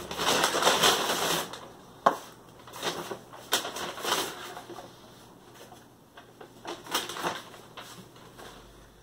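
Brown paper takeout bag rustling and crinkling as food boxes are lifted out and set down on the table, with a sharp knock about two seconds in and further scattered rustles and taps.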